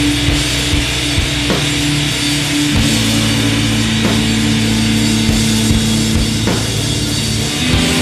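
Rock music with a drum kit, sustained low notes that shift pitch about three seconds in and again near the end.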